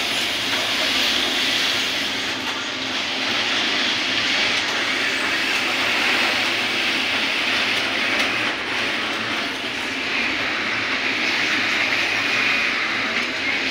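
Many industrial sewing machines running at once, a steady mechanical din.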